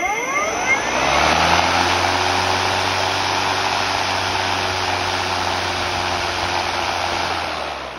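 EGO 56-volt cordless lawnmower's electric motor spinning its blade up to speed with a rising whine, then running with a steady whir and rush of air from the blade. Near the end it begins to fade as the blade winds down.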